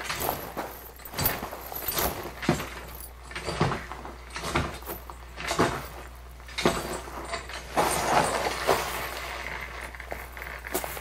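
A series of sharp knocks and clatters at uneven spacing, about a dozen, with a denser cluster of them about eight seconds in, over a steady hiss.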